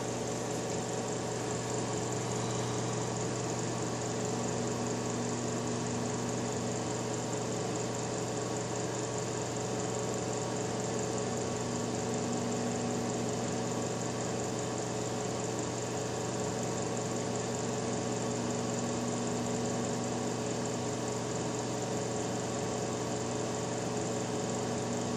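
Microwave oven running at full power: a steady hum that holds unchanged throughout.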